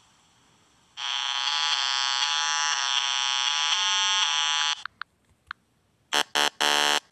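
Synthesized electronic buzzing tone held for nearly four seconds and cut off abruptly, then after a short gap a run of short, choppy buzzing blips starting near the end.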